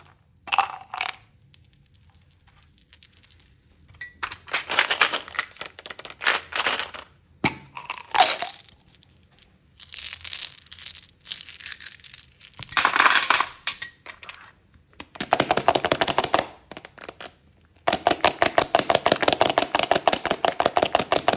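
Candy crackling and crunching in bursts of dense, crisp clicks with short pauses between them; the longest run of rapid clicks comes near the end.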